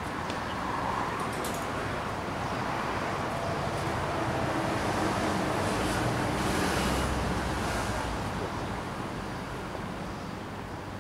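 Steady rush of road traffic, swelling to its loudest a little past the middle and easing off again.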